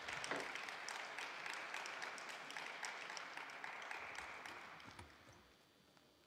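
Spectators applauding a point, the clapping dying away about five seconds in.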